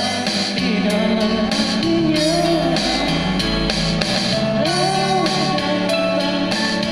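Band music: guitar over a steady drum beat, with a melodic line that bends in pitch.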